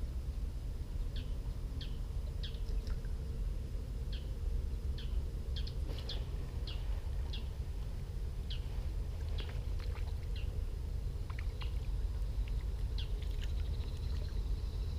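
Small birds calling with short, high, repeated chirps, each a quick falling note, coming irregularly a couple of times a second, over a steady low rumble.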